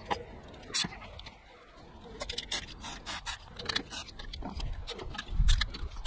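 Irregular light clicks and scraping of hand work on the engine's throttle linkage, with a dull low thump a little past five seconds.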